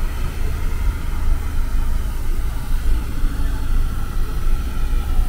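Restored steam locomotive standing with steam up: a steady low rumble with a faint hiss.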